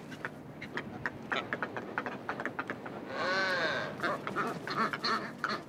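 Brown boobies calling in a nesting colony: one drawn-out call, rising then falling in pitch, about three seconds in, over a scatter of short sharp ticks and calls.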